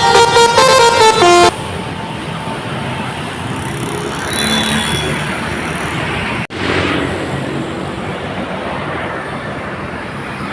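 A bus's multi-tone 'telolet' horn plays a quick stepped melody that drops to a lower final note and stops about a second and a half in. Then comes steady road traffic with vehicles passing, broken by a brief dropout about six and a half seconds in.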